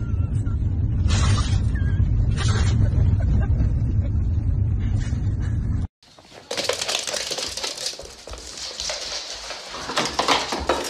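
Steady low road rumble inside a moving car, broken by a few short noisy bursts. It cuts off suddenly about six seconds in. After that comes a quieter room sound with scattered clicks and scuffs as a small dog runs across a laminate floor.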